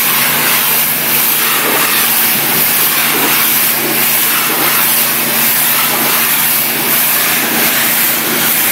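Hot-water pressure washer spraying at 3000 psi, its jet hissing steadily against an aggregate wall, with the unit's engine and pump humming underneath.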